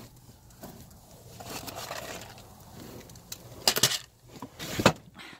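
Handling noise as a plastic tray of dry cat food is lifted out of a particleboard storage compartment: faint rustling and scraping, then a few sharp knocks and clatters, the loudest about four and five seconds in.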